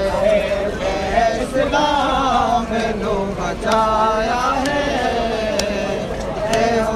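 Men's voices chanting a melodic Muharram mourning lament (noha) over a steady low hum.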